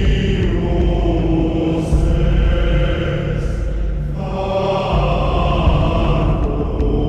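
Background music with chant-like choral voices over a heavy low drone. Held chords shift every second or two.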